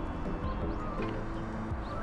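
Background music: a melody of held notes that change pitch every fraction of a second.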